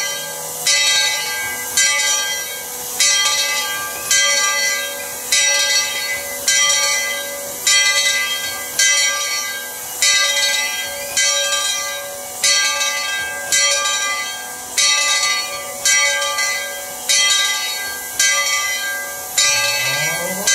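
Steam locomotive bell on Tweetsie Railroad's 1917 Baldwin 4-6-0 No. 12 ringing steadily, one clang a little more than once a second, each ringing on as it fades.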